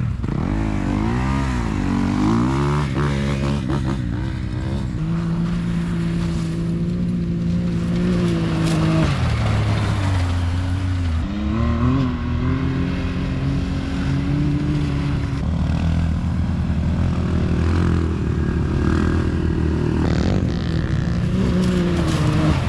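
Can-Am Maverick X3 side-by-side's engine running while driving, its pitch swinging up and down in quick revs at first, then holding mostly steady, with a drop and pick-up about ten seconds in.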